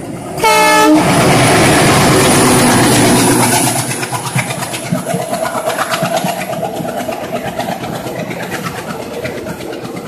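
A short blast of an Indian Railways WDM diesel locomotive's horn about half a second in. It is followed by about three seconds of the locomotive's loud engine and wheel noise as it passes close by. Then its passenger coaches clatter past with a steady rhythm of wheel clicks over the rail joints.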